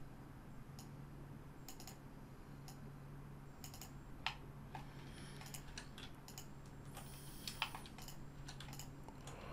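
Faint, scattered clicks of a computer keyboard and mouse, singly and in small quick clusters, over a low steady hum.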